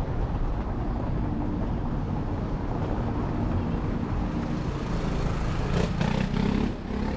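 City street traffic: a motor vehicle running close by, a steady low rumble, with a few short clicks about six seconds in.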